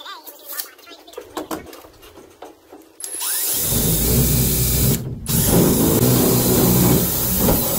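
Cordless drill running under load, drilling into aluminum boat framing. Light handling clicks come first, then two steady runs of the drill with a short stop about five seconds in.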